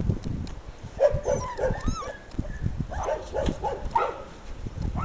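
Seven-week-old Dalmatian puppies yipping and whining in short, high calls, in clusters about a second in and again about three to four seconds in, with low thumps underneath.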